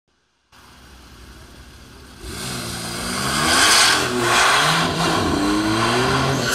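Porsche 911 flat-six launching hard from a standstill and accelerating away. About two seconds in the engine note jumps up loud and climbs in pitch, drops back at a gear change about halfway through, then climbs again as the car pulls off down the strip.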